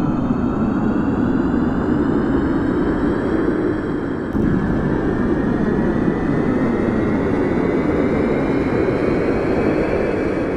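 Airplane engines at takeoff: a loud, steady roar under a high whine that rises slowly in pitch. Just after four seconds in, the sound dips briefly and then jumps back.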